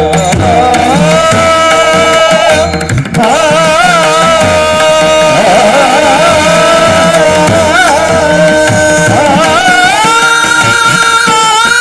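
Devotional kirtan singing: a voice holding long, ornamented, wavering notes over tabla-style hand-drum strokes and a steady drone.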